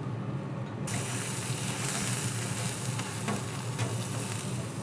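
Minced shallots and garlic sizzling in olive oil on a flat-top griddle, with a few light scrapes of a metal spatula stirring them. The hiss of the sizzle comes in suddenly about a second in, over a low steady hum.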